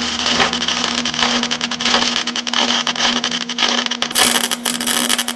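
MIG welder arc crackling steadily over a low electrical hum while a bead is laid, turning harsher about four seconds in.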